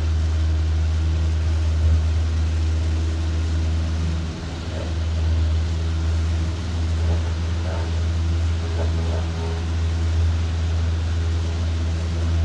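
Light aircraft's engine and propeller running at takeoff power, a steady low drone through the takeoff and climb-out, with a brief dip about four seconds in.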